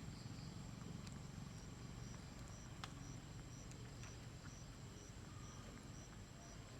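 Faint outdoor ambience: a low rumble under a short high chirp that repeats about twice a second, with a few light clicks.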